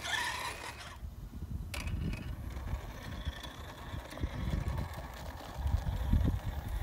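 Redcat Gen8 Scout RC crawler's Hobbywing AXE 2300kV brushless motor and gear drivetrain whirring at crawling speed as the truck climbs over rocks, with tyres scrabbling on the stone. Low uneven rumbling grows loudest near the end.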